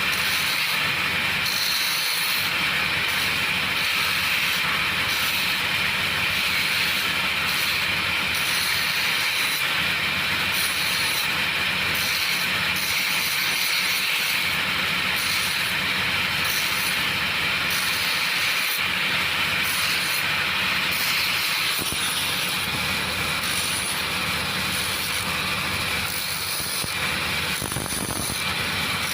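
Power grinder running steadily against steel, a continuous loud hissing grind with a faint whine in it.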